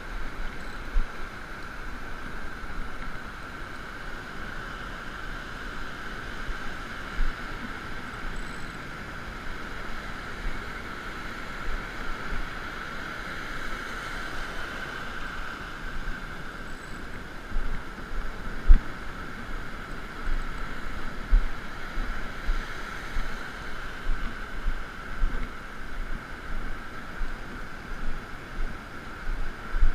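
Ocean surf washing and foaming in the shallows as a steady hiss, with wind buffeting the microphone in low bumps that grow more frequent in the second half.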